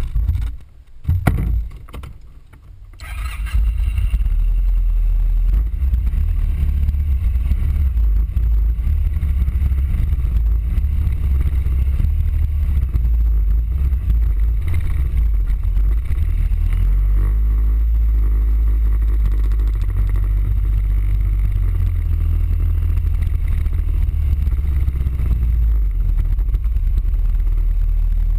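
A few knocks in the first seconds, then the Suzuki Burgman 650 scooter riding along, heard from a camera mounted on it as a steady loud low rumble of wind and engine.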